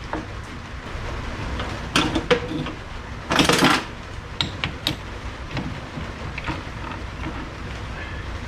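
Metal clinks and knocks from tools and a small metal part being handled at a lathe, with a brief louder scraping rush about three and a half seconds in, over a steady low hum.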